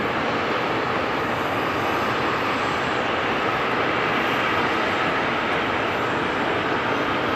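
Airliner engines running steadily: an even rush of engine noise with a steady whine through it, neither rising nor falling.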